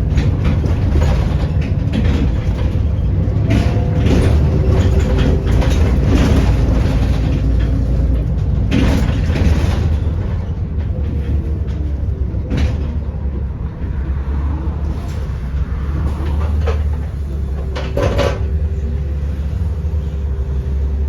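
Inside a Volvo B7RLE single-decker bus on the move: its straight-six diesel engine and ZF automatic gearbox running under a steady low rumble, with a faint whine that shifts in pitch. Sharp rattles and knocks from the bus body sound a few times, loudest about nine seconds in and again near the end.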